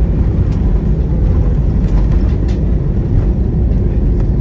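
Cabin noise of an Airbus A320-216 rolling out on the runway just after landing: a steady, loud low rumble from the wheels on the runway and the CFM56-5B engines, with a few faint clicks from cabin fittings.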